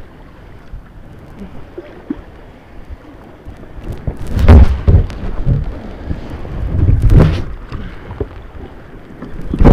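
Rumbling buffeting on the microphone: three loud low bursts, the first a little under halfway, the second about two and a half seconds later, the third at the very end, over a steady low rumble.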